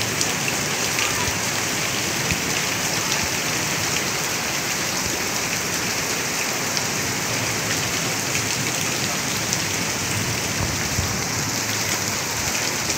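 Heavy rain pouring steadily onto a flooded yard and parked vehicles, with scattered sharp drops splashing close by.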